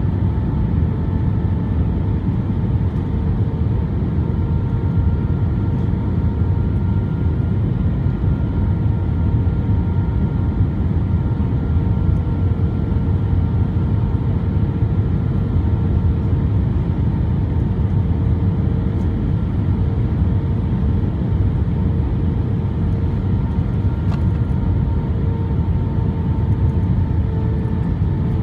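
Airbus A320 cabin noise on final approach with the flaps extended: a steady low rumble of engines and airflow, with a few faint steady tones above it.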